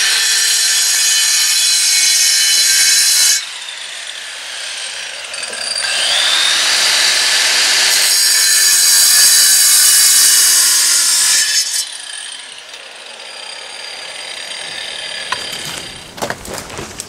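Hitachi angle grinder cutting a bluestone paver: a loud, high-pitched grinding whine in two cutting passes, easing off about three seconds in and again about two-thirds of the way through while the blade keeps spinning. A few sharp knocks near the end.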